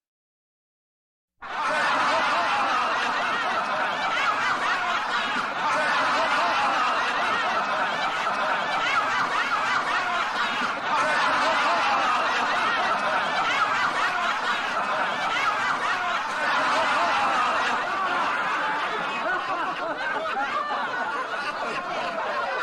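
A large crowd laughing together, many overlapping voices chuckling and snickering in a steady mass. It starts abruptly about a second and a half in, after a moment of silence.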